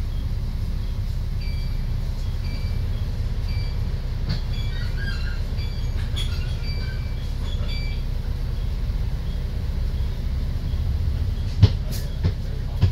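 Steady low rumble of a double-decker bus's diesel engine idling at a stop, heard from inside the bus. A faint high electronic beep repeats about once a second for several seconds in the first half, and a few sharp knocks come near the end.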